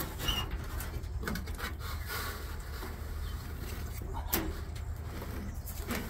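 Light rustling, scraping and soft knocks of a car's wiring harness being fed and handled through a door jamb, over a low steady rumble.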